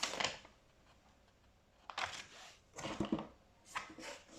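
Handling noise from a snow foam lance's plastic and metal parts being turned over in the hands: a few short clicks and rustles about two seconds in and again near the end, with a quiet stretch before them.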